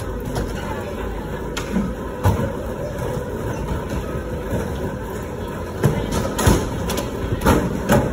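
Skateboard wheels rolling over concrete and wooden ramps, with a board knock a couple of seconds in and several more knocks and clacks in the last few seconds.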